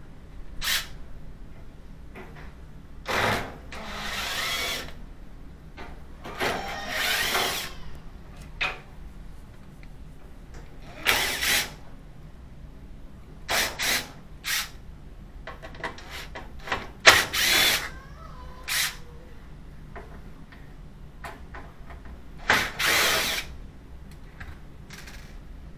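Power drill backing out the screws of the dryer's tub support and blower housing, running in about a dozen short bursts with pauses between, the motor's pitch rising and falling within some of them.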